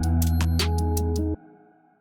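Electronic background music with a deep bass, held synth chords and sharp drum hits, cutting off suddenly about halfway through and dying away to near silence.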